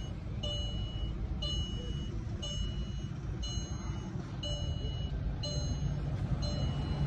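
Vehicle electronic warning beeper sounding a short high beep about once a second, seven times in a row, over a steady low rumble.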